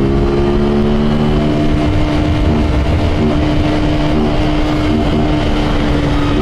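Honda Titan 150's single-cylinder four-stroke engine running at a steady speed, loud and deep, its carburettor breathing without the intake hose fitted.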